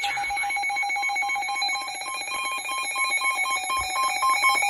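Emergency Alert System attention signal: a steady two-tone electronic alarm, held without a break, announcing a severe thunderstorm warning.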